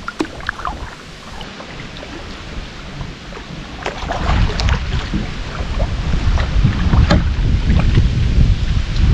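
Double-bladed canoe paddle dipping and splashing in calm river water, with sharp splashes and drips about four and seven seconds in. Wind buffets the microphone as a low rumble that grows heavier in the second half.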